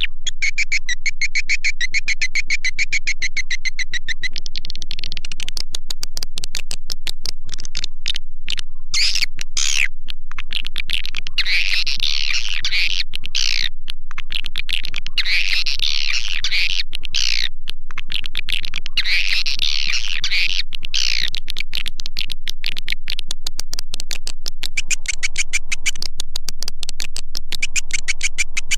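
Swiftlet-house calling sound: an electronically processed recording of edible-nest swiftlet calls. Rapid high chirping and twittering over a fast, even clicking patter swells and fades in waves every few seconds.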